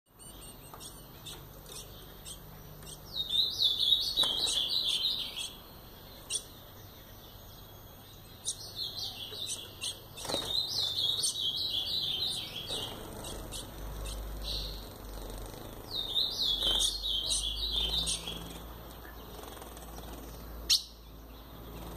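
Ultramarine grosbeak (azulão), a young male still in brown plumage and in breeding condition, singing his warbled song in three phrases a few seconds apart. A single sharp knock comes near the end.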